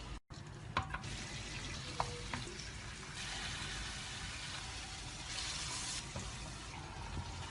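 Popiah filling stir-frying in a pan, a steady sizzle with a few light clicks of a utensil against the pan in the first couple of seconds. The sound drops out briefly just after the start.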